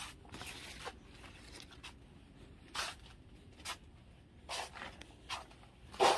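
Scissors snipping through strawberry leaves and stems while pruning, with leaves rustling: a series of short, scratchy snips about a second apart, the loudest near the end.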